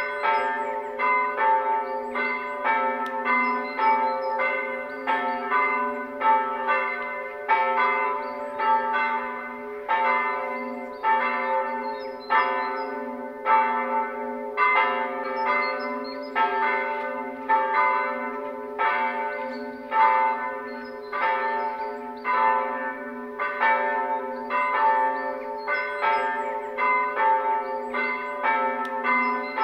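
Church bells ringing, several bells struck in an uneven pattern about two times a second, their tones lingering and overlapping into a steady hum. This is the pre-service peal calling people to worship.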